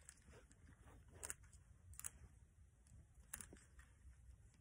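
Near silence with three or four faint, brief rustles and clicks as a hand rummages in a bag.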